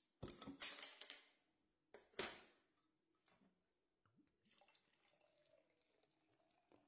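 Glassware clinking and clattering: a quick run of sharp knocks in the first second and one more about two seconds in, then only faint scattered taps.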